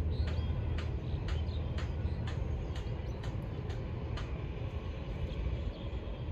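A steady low rumble of distant engines or machinery, with a regular knocking about twice a second that fades out after about four seconds.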